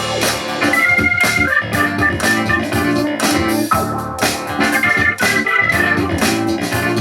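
Keyboard-led music with a steady beat playing through the speakers of a JVC RC-M90 boombox.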